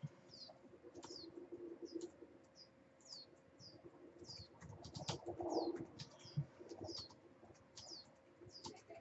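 A small bird chirping over and over: short, high, downward-sliding chirps about once or twice a second, over a low steady hum and a few soft clicks.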